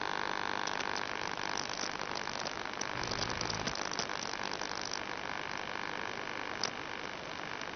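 Steady radio hiss with a fixed electrical hum on an analog FPV video link's audio, with a few seconds of dense crackling in the middle and one sharp click near the end.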